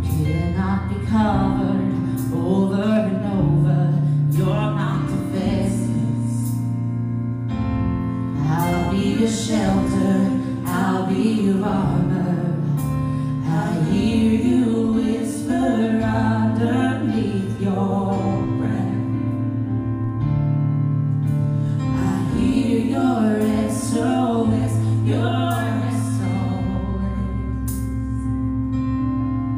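Worship song: a voice singing a melody over sustained instrumental accompaniment.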